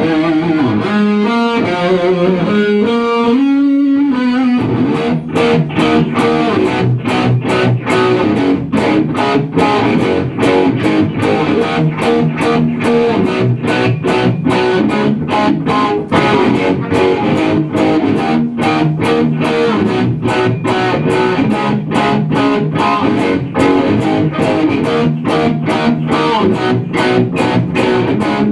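Rock music: an electric guitar plays a melodic line alone, then about four and a half seconds in the full band comes in with distorted guitars and fast, steady drums.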